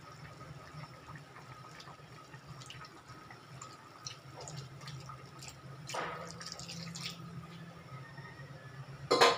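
Cornstarch slurry poured from a metal bowl into a pot of sauce, dripping and splashing in. Near the end there is one sharp metal clank.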